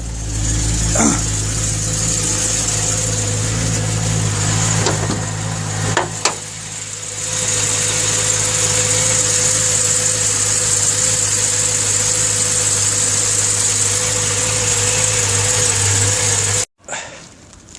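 Car engine running steadily, with a steady hum joining about six seconds in; the sound cuts off abruptly near the end.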